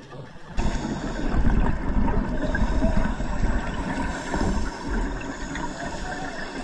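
Water noise with a churning low rumble, starting abruptly about half a second in and staying loud and uneven.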